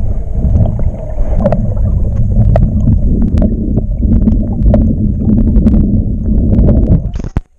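Underwater sound of a creek heard through a GoPro's waterproof housing: a dense, muffled low rumble of moving water with scattered small clicks and ticks. It cuts off suddenly near the end.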